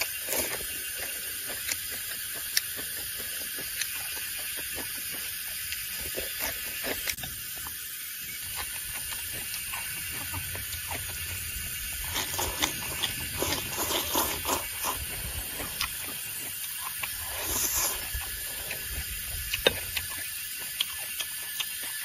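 A person eating with chopsticks: chewing mouthfuls of stir-fried pumpkin shoots and rice, with scattered light clicks and a busier stretch of chewing in the second half, over a steady high hiss.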